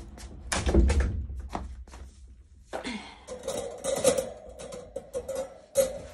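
Metal wire cage being handled: a heavy thump about a second in, then a run of sharp clicks and knocks as its bars are moved. A wavering whine runs under the knocks in the second half.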